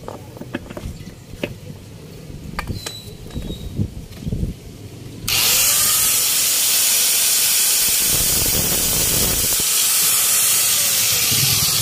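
Light metal clicks and taps as a piston ring is set into the cylinder bore. About five seconds in, a small handheld electric grinder switches on and runs steadily and loudly, used for fitting the piston ring's end gap.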